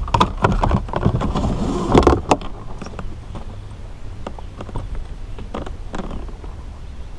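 Rapid knocks, rustling and splashing as a big fighting fish is handled aboard a kayak, dense in the first two seconds or so and then sparser, over a low steady rumble of wind on the microphone.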